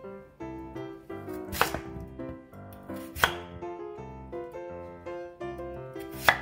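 Chef's knife chopping through a peeled raw potato into a wooden cutting board: three sharp chops, over light background music.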